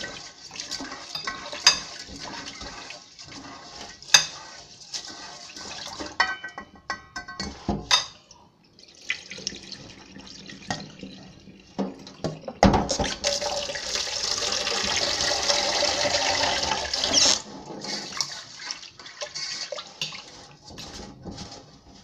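Two metal forks mixing and tossing seasoned pancit canton noodles in a bowl: scattered clicks and scrapes of fork on bowl. Just past halfway a louder steady rushing hiss runs for about four seconds.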